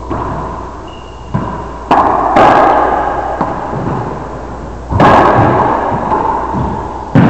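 Racquetball being struck by racquets and slamming off the court walls during a rally: about five sharp cracks, each followed by a long echo in the enclosed hardwood-floored court.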